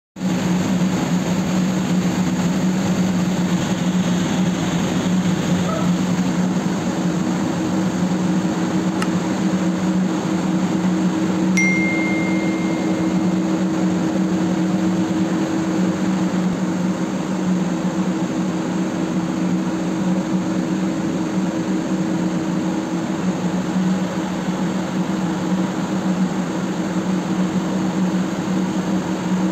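Steady machinery hum in a ship's engine room, a constant low drone with no rise or fall. About a third of the way in there is a click followed by a short high steady tone.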